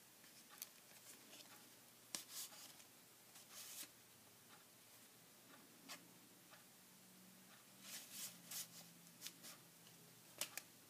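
Near silence broken by faint, brief rustles and light taps of paper and card as the pages and tags of a small handmade paper book are handled and turned.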